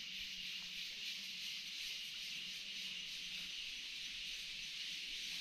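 Steady high-pitched hiss of subtropical forest ambience by a creek, even throughout with no distinct event.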